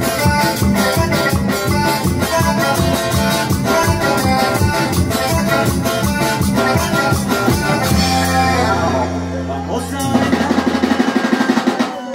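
Live band playing Latin dance music through a PA, with guitar, hand percussion and a steady beat. About eight seconds in the beat drops out for held low notes, then a fast rapid passage follows.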